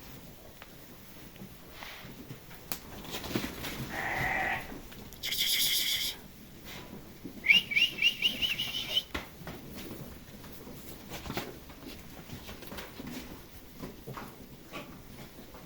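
Lambs bleating, with a couple of bleats around four to six seconds in, the second one louder.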